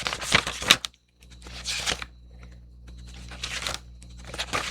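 Drawing paper rustling in several short bursts as sheets are handled and turned over.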